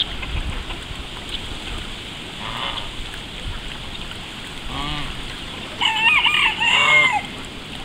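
Backyard poultry calling: a few short calls, then a louder run of wavering calls about six to seven seconds in.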